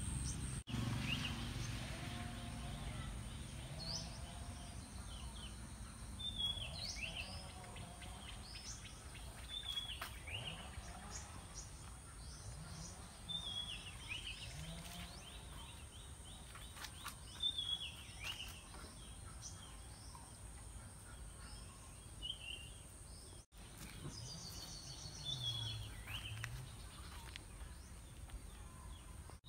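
Birds calling in a garden. One bird repeats a short call that falls in pitch every three to four seconds, among scattered chirps, over steady background noise.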